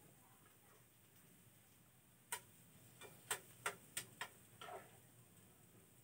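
Metal kitchen tongs clicking against a frying pan while stirring: about six sharp clicks over two seconds, then a short, softer rattle.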